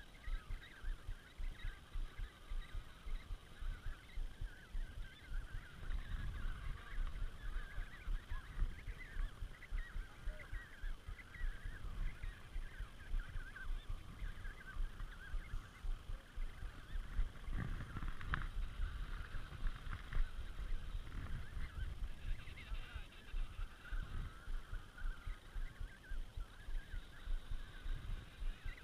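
Emperor penguin colony calling: a dense, continuous chorus of many overlapping trumpeting calls, with low rumbling thuds underneath.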